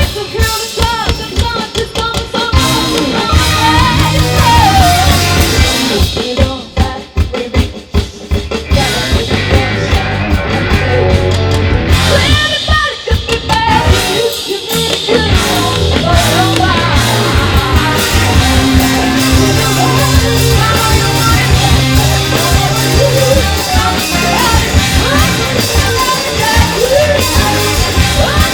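Rock band playing loud and live, with drum kit, distorted electric guitars, bass and a singer. The band thins out briefly twice, about a quarter and a half of the way through, before the full beat returns.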